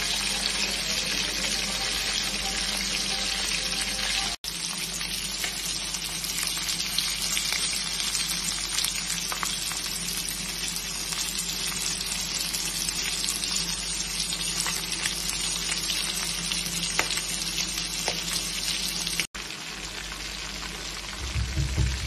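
Food deep-frying in hot oil: a steady sizzle dense with small crackling pops. It cuts out for an instant twice, and there is a low bump near the end.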